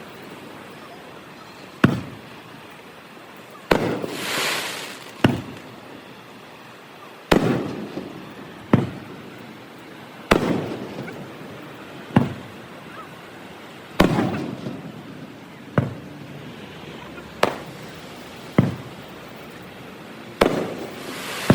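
Fireworks display: aerial shells bursting in a series of sharp bangs, one about every one and a half to two seconds, each trailing off in a rolling echo. A crackling hiss follows the burst about four seconds in.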